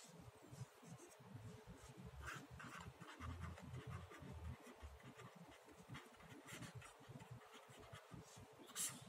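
Faint scratching of a felt-tip marker writing on paper, in short strokes. A brief louder noise comes near the end.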